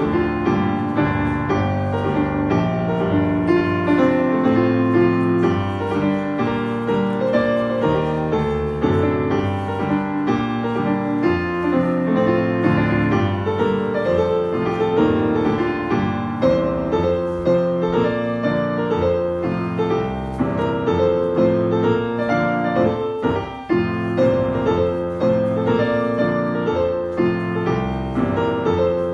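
Scottish country dance music playing steadily for the dancers, with a piano prominent.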